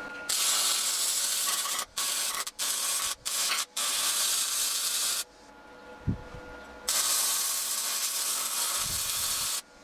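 Electric arc welder laying weld beads on steel, the arc crackling and hissing in two runs: a long one broken by four brief stops, then after a pause a second run of about three seconds.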